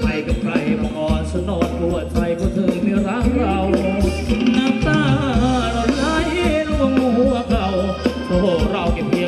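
Thai ramwong dance band music: a singer's voice over sustained bass notes and a steady drum beat.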